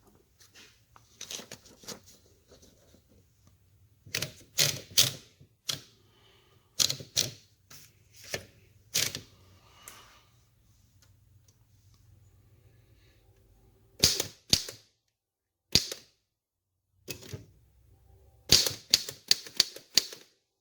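Royal No. 5 manual typewriter being typed on: sharp typebar clacks in irregular bursts of a few strokes, with pauses between, including a quiet stretch of about a second and a half before a final quick run of keystrokes near the end.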